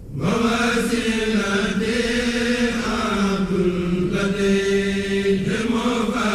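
A man's voice chanting in long drawn-out notes that bend slowly in pitch, a religious chant.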